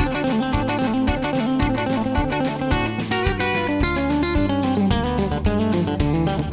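Electric guitar on a Telecaster-style solid body, played fast in country chicken pickin' style: a quick run of picked notes and double stops, hammered on and off around one fretted position. Under it runs a backing track with a steady, repeating bass line.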